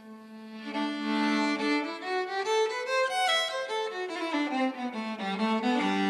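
Violin playing a slow, melodic instrumental line, with a lower note held beneath it. It comes in under a second in, after a brief lull.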